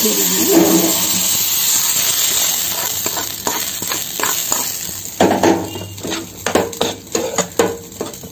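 Hot oil tempering of small onions and greens sizzling over the okra masala, the hiss dying away over the first few seconds. A spatula then stirs and scrapes against the pan, knocking sharply several times a second.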